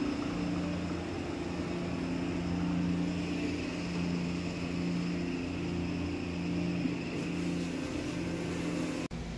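A steady low mechanical drone, like an engine or vehicle running, with a low hum that swells and fades in level.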